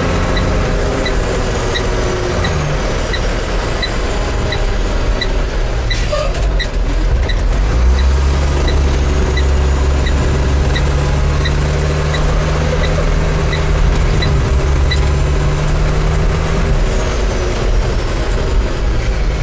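The Cummins diesel engine of a 2005 Autocar Xpeditor garbage truck, heard from inside the cab as the truck drives along, with a steady low drone that pulls harder and louder from about eight seconds in. A fast, regular high tick, about three a second, runs over it, and there is a single knock about six seconds in.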